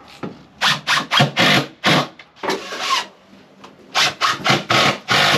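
Hand work on the wooden nesting box: quick scraping strokes against the wood, in two runs of five or six strokes with a pause in the middle.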